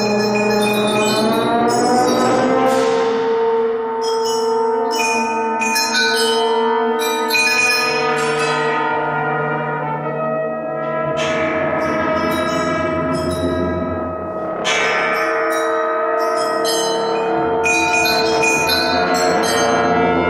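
Brass and percussion ensemble playing contemporary concert music: long held brass chords, with struck bell-like metal percussion ringing out over them again and again.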